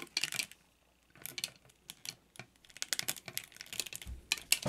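Irregular small plastic clicks and taps as an action figure is handled and seated in the waist clip of its clear plastic flight stand, with a short pause about half a second in.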